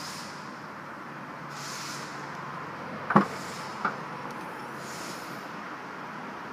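Rear liftgate of a 2011 Chevrolet Traverse being unlatched and swung open: a sharp click of the latch releasing about three seconds in, then a second, lighter click, over a steady outdoor hiss.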